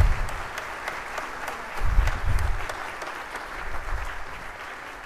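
Congregation applauding, a dense patter of many hands clapping. Low thumps come at the start and again about two seconds in; the first is the loudest moment.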